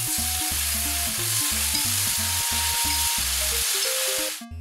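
Pork-wrapped rice skewers sizzling loudly in a hot frying pan as yakiniku sauce is brushed on; the sizzle cuts off suddenly near the end.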